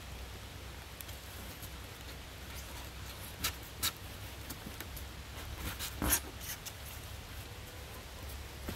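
A few sharp knocks and clicks as a top box is set down and seated on a beehive, the loudest about six seconds in, over a steady low background rumble.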